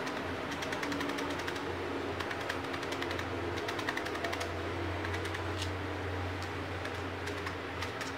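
A felting needle stabbing again and again through a small ball of wool roving into a foam sponge pad, making quick, irregular soft ticks several times a second as the wool is compacted into a tight, small ball. A steady low hum runs underneath.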